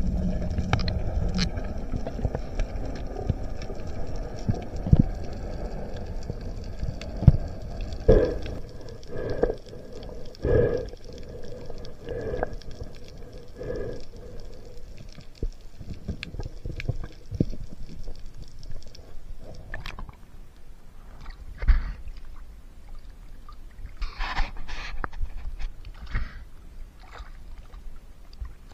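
Muffled underwater water noise through a diving camera's housing: a low rumble with a row of dull knocks about once a second in the middle and a faint steady whine that stops about two-thirds of the way through, then splashy bursts near the end as the camera comes to the surface.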